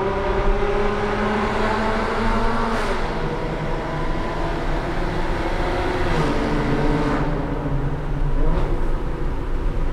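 Maserati Ghibli S twin-turbo V6 under way with its valved exhaust open, heard from inside the cabin. The engine note is loud and steady, with its pitch stepping down about three seconds in and shifting again around six to seven seconds in.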